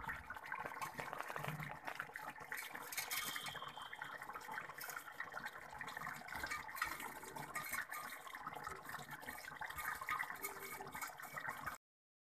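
Kadai paneer gravy bubbling in an open pot on the stove: a steady crackle of small bubbling pops that cuts off suddenly just before the end.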